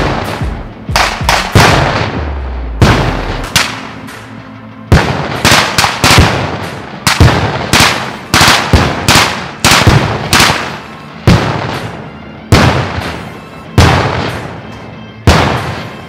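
Small-arms gunfire: rifle shots fired irregularly, sometimes in quick pairs and triples, each ringing out with an echoing tail.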